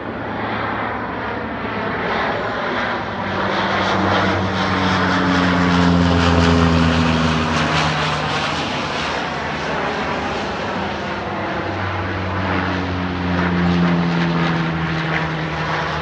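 Twin-engine amphibious water bombers flying low overhead. The loud propeller-engine drone swells twice as one plane and then another go by, and each time the engine tone falls in pitch as the plane passes.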